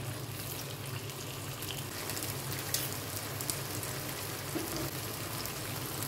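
Marinated chicken pieces frying in hot oil in a grill pan: a steady sizzling hiss with scattered small crackles and pops as the pieces are laid in.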